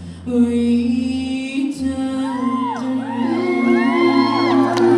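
Male voices holding the final chord of an a cappella song. From about two seconds in, audience whoops and cheers rise over the held note.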